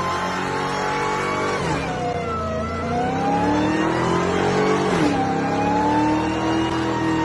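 Performance car engine running hard. Its pitch sinks, climbs again, then drops abruptly about five seconds in, as at a gear change, and holds steady after.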